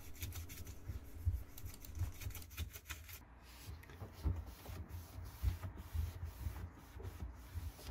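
Scrubbing the rubber door gasket of a front-loading washing machine with toothpaste, then wiping it with a cloth: faint, irregular rubbing strokes.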